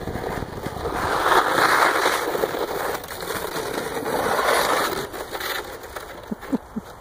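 Plastic saucer sled scraping over crusted snow, with two loud swells of scraping as it slides in and then spins out, before fading as the sled stops.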